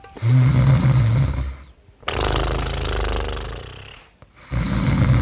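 Loud, exaggerated snoring: a rattling snore on the in-breath, a long hissing out-breath that fades away, then another rattling snore near the end.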